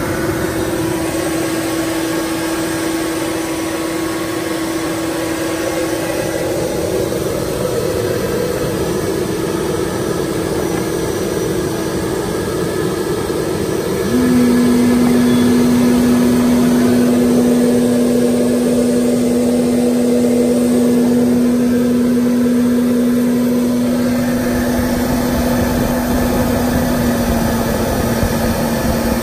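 National Optronics 7E patternless lens edger running: a steady motor hum over a whirring machine noise. About fourteen seconds in the hum drops in pitch and the whole sound gets louder, and the edger goes on grinding the lens under water spray.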